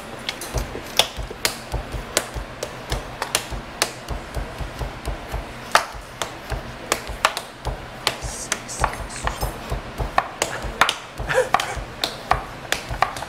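A quick, uneven run of sharp taps and low thuds, several a second, from feet stepping and stamping on a hard floor during a shadowboxing dance.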